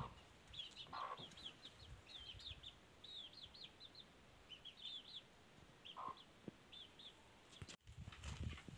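Chickens: faint, rapid high peeping chirps in quick runs, with a few lower clucking notes about a second in and again near six seconds. Near the end the sound breaks off sharply and gives way to low scuffling.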